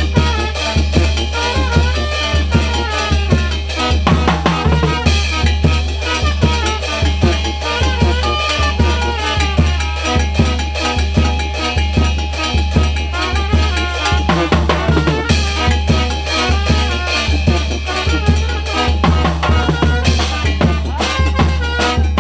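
A band playing a Latin dance tune, with a drum kit keeping a steady beat of bass drum and snare hits under horns.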